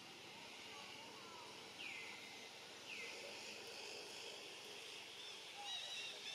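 Faint outdoor ambience with birds calling: two falling whistle-like notes about a second apart, then a quick run of short repeated chirps near the end, over a steady high background drone.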